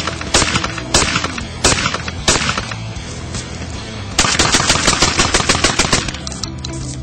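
Beretta Xtrema2 semi-automatic shotgun firing: five shots spaced about half a second apart, then a fast string of about a dozen shots beginning about four seconds in, over background music.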